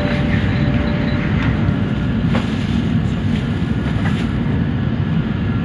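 Interior running noise of an N700-series Shinkansen car: a steady, low rumble of wheels on rail with a hiss above it. There are a couple of faint ticks partway through.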